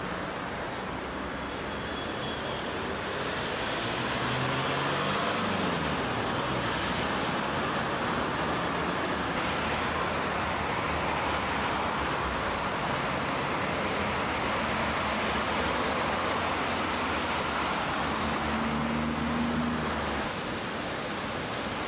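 Steady street traffic noise, with the engines of passing vehicles rising and falling in pitch now and then.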